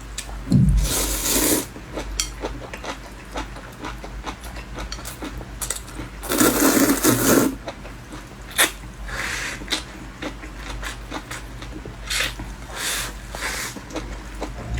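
Close-miked eating of glass noodles: two long slurps, one near the start and one about six seconds in, with wet chewing and many small clicks between.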